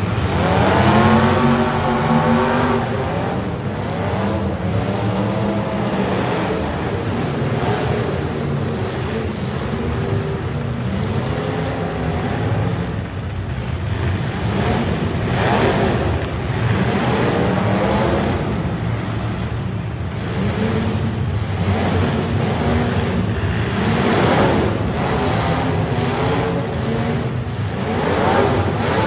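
Several demolition derby car engines running and revving hard, their pitch climbing sharply about a second in and again several times later, over a constant engine din.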